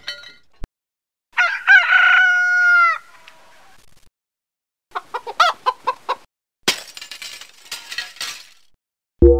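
A string of separate sound effects: a rooster crowing once, a long call whose pitch drops at the end, then a run of about six short clucks. A noisy clatter follows, and a short low hit comes near the end.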